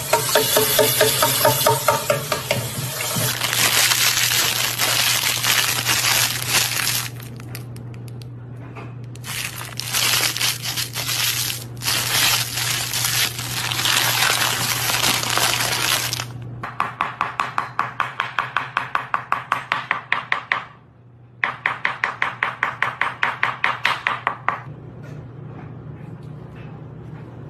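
Tap water splashing into a frying pan in a sink, then a plastic snack bag being crinkled in a hand. Later comes a fast regular ticking, about four ticks a second, which breaks off briefly and starts again.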